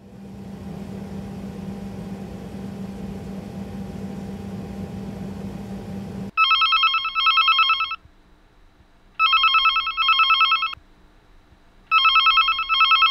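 A steady low hum, then from about six seconds in a telephone ringing three times, each ring a warbling double pulse.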